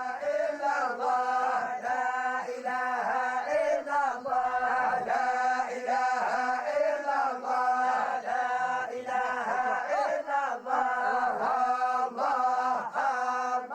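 A Sufi group chanting dhikr in unison, repeating a short prayer phrase over and over in a steady, quick rhythm on a nearly level pitch.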